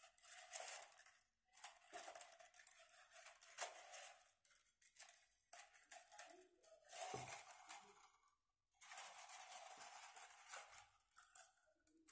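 Faint, irregular crinkling and crackling of thin plastic strips cut from a plastic bottle as they are bent downward by hand, one after another.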